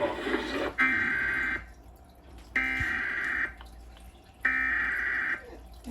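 Emergency Alert System SAME header: three bursts of digital data tones, each just under a second long with about a second between them, encoding a Required Monthly Test.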